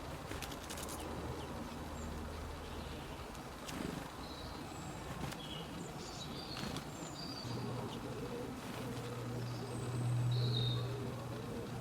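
Outdoor ambience of small birds giving short, scattered high chirps. A steady low hum underneath grows louder about two-thirds of the way through.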